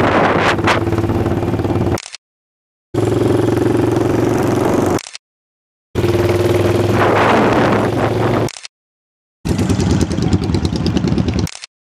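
Motorcycle engine running with heavy wind rush on the microphone while riding, in stretches of about two seconds each cut off abruptly into full silence. In the last stretch the engine runs with a fast, even beat.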